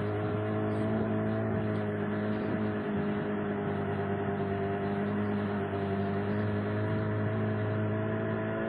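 Outboard motor of a narrow marsh boat running steadily under way, an even hum that holds one pitch throughout.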